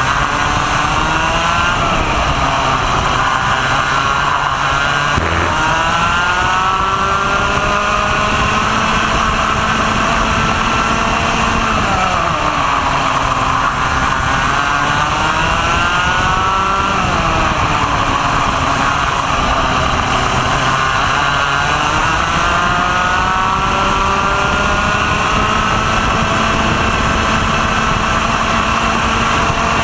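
Racing kart's 125 cc two-stroke ROK engine at race pace, heard from on board. The engine note climbs steadily on the straights and drops sharply each time the kart slows for a corner, most deeply about halfway through and again about two-thirds through. A steady rush of wind and noise sits under it.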